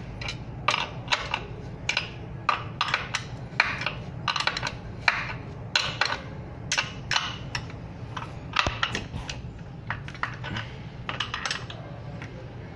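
Steel wrench clicking and clinking on the axle nut of an electric bike's hub motor as the nut is tightened down, in irregular sharp ticks a few times a second.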